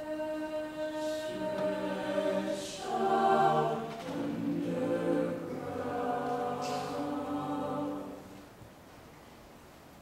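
Mixed chamber choir singing sustained chords: a few voices hold a note, the rest come in about a second later, the sound swells loudest around three seconds in, and the chord is released a little after eight seconds in.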